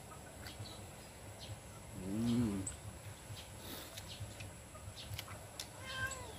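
Animal calls, twice: a short call rising and falling in pitch about two seconds in, and a higher call falling in pitch near the end.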